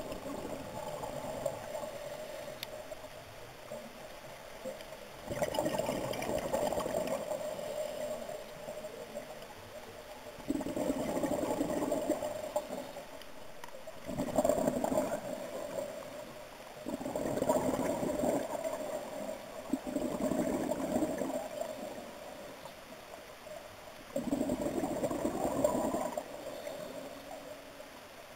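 Scuba diver breathing through a regulator, heard underwater: bubbling exhalations every few seconds, about six in all, with a quieter hiss between them.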